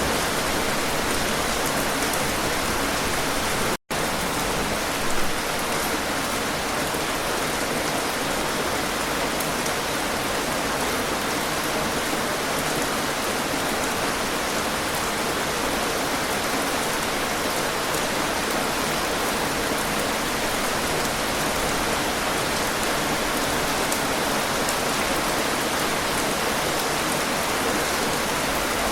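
Heavy rain falling steadily, an even hiss of drops on surfaces. The sound cuts out for an instant about four seconds in.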